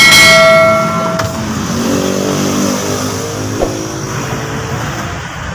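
Kia K2700 diesel truck engine running and revving unevenly, opening with a sudden loud high whine that fades away within about a second.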